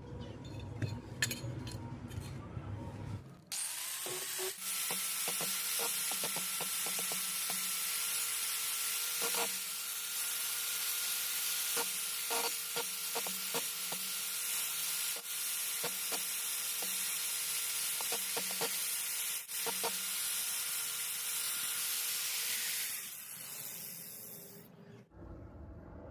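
A small power tool's motor starts about three and a half seconds in, runs at a steady speed with a high hiss and scattered clicks for about twenty seconds, then shuts off and runs down.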